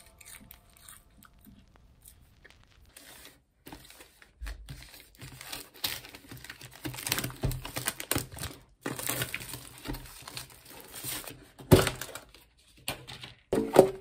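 Plastic and cardboard packaging of a boxed instant meal being handled and opened: after a few quiet seconds, irregular crinkling, tearing and clicking of plastic wrap, lid and tray, with one sharp knock about twelve seconds in.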